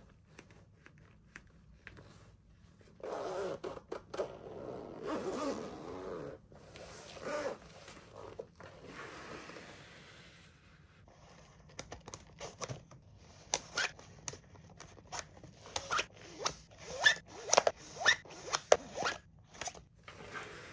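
Toy packaging being opened and handled by hand: a rasping scrape lasting a few seconds, some fainter rustling, then a long run of sharp crinkling crackles.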